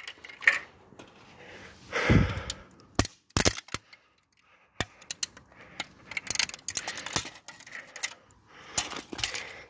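Brittle plastic guard of a 1980s Mistral fan cracking and snapping under a shoe on asphalt: a scatter of sharp cracks and clicks, with a heavier thump about two seconds in and a run of smaller snaps and clatter near the end.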